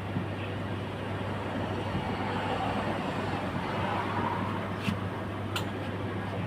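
A steady low hum over a continuous noisy rumble, swelling slightly in the middle, with two short sharp clicks near the end.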